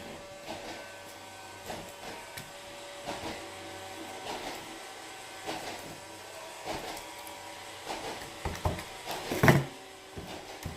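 Scattered light taps and clicks of plastic slime containers and tools being handled, with a louder knock near the end.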